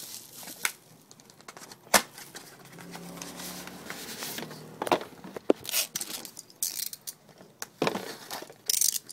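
Plastic wrap and card packaging torn and crinkled as a sealed box of trading cards is opened, with scattered sharp crackles and clicks. The loudest snap comes about two seconds in, with more crinkling bursts around the middle and near the end.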